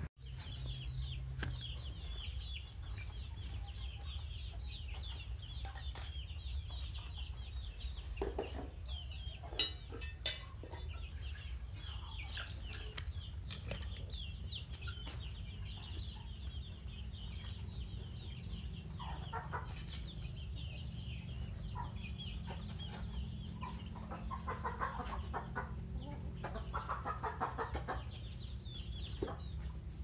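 Young chickens peeping continuously in a pen, with some lower clucking later on, over a steady low hum. Two sharp clicks come about ten seconds in.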